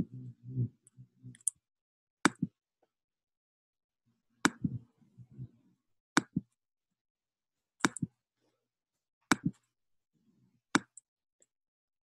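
Computer mouse clicking about six times, a second and a half to two seconds apart, some clicks doubled as the button is pressed and released. A short low hum follows a few of the clicks.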